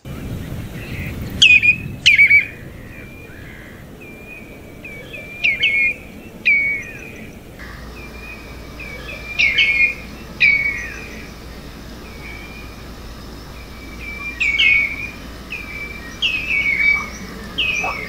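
Common redshank flight calls: clear whistled notes, each falling slightly in pitch, given in short linked groups of two or three, repeated every second or two.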